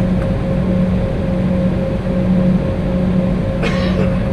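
Steady hum of an Embraer E190's turbofan engines heard inside the passenger cabin, running at low power with the jet standing still. Two constant tones sit over a low rumble, with a brief rustling noise near the end.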